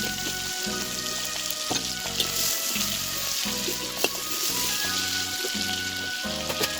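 Prawns frying in hot oil: a steady sizzle, with a few sharp knocks of the spatula against the pan.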